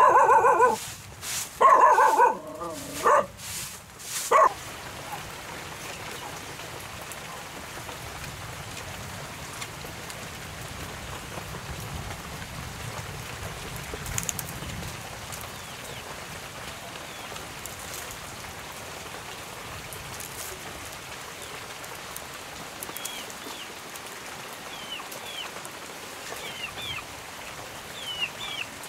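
A dog barks four or five times in the first few seconds. Then steady rain falls, with short high bird chirps near the end.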